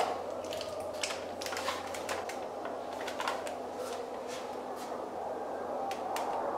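Irregular small clicks and rattles of a gun and its mounted torch being handled, over a steady background hum.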